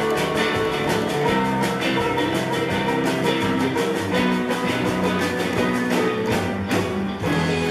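A rock band playing: electric guitars over a drum kit keeping a steady beat.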